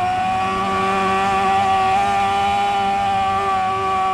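Honda superbike's inline-four engine held wide open at high revs, a steady engine note with only slight shifts in pitch, over wind rushing past the onboard microphone.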